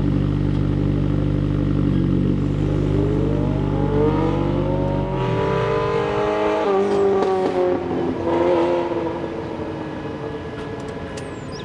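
Car engine running at a steady idle, then revving: the pitch climbs over a couple of seconds from about the fifth second, then eases down and wavers as the deep rumble fades.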